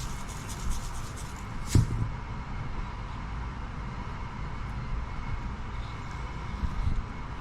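Steady low rumble with a faint constant hum, broken by a single sharp knock a little under two seconds in.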